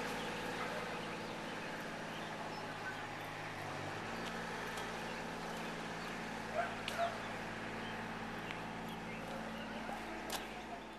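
A steady low engine hum, like a motor idling, with two short bird calls about seven seconds in.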